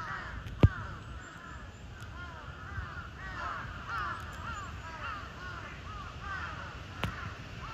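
A flock of birds calling, many short arching chirps overlapping without a break. A sharp knock sounds just over half a second in, and a smaller one near the end.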